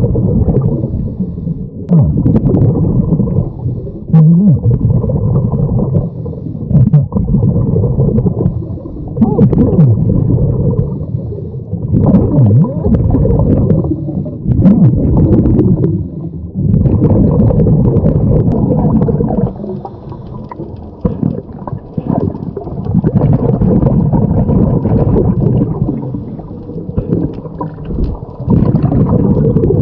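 Scuba regulator exhaust bubbles gurgling past an underwater camera, in repeated bursts a few seconds apart as the diver breathes out, with quieter gaps for each inhalation.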